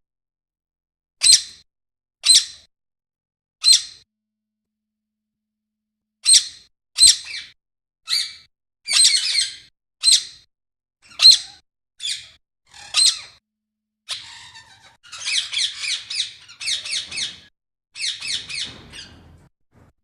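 Pet parrots squawking loudly and harshly. At first single calls come about a second apart, with a gap around five seconds in; in the last few seconds the calls run together in a quick repeated series.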